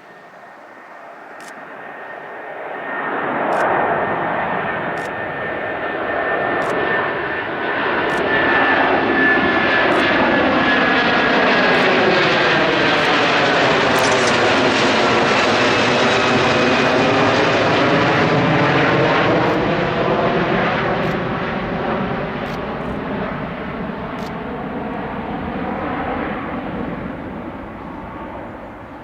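Airbus A330-300's Rolls-Royce Trent 700 jet engines at takeoff power as the airliner departs and passes by. The sound swells over several seconds, holds loud for about ten seconds and then fades, with a high whine falling slowly in pitch on the approach.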